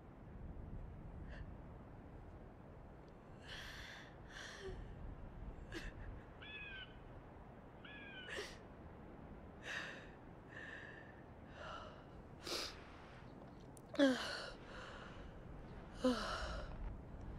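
A young woman's breathy sobbing and gasping, in short catches of breath that grow stronger near the end, with two short high chirps in the middle.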